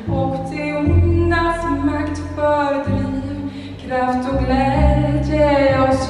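A woman singing a slow melody in long held notes, accompanied live by a small chamber ensemble whose strings hold low sustained notes beneath the voice.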